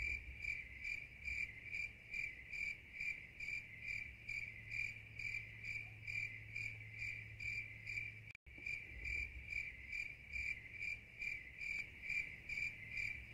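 Cricket chirping sound effect, a faint, even string of high chirps about two a second, which cuts out for an instant about eight seconds in. It is the stock "crickets" cue for dead silence.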